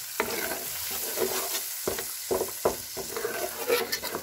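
Spice masala sizzling in hot oil in a pan while being stirred and roasted with a metal spatula. Several sharp scrapes and knocks of the spatula against the pan stand out over the steady sizzle.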